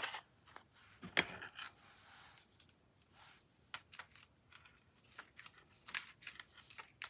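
Scattered light clicks and taps with a brief rustle, from small craft pieces and supplies being handled and set down on a work surface.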